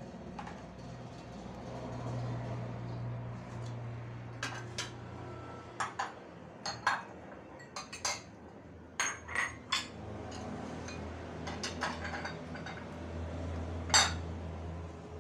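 Scattered clinks and knocks of metal kitchenware and dishes, a dozen or so sharp clicks over several seconds, the loudest near the end, over a steady low hum from the kitchen.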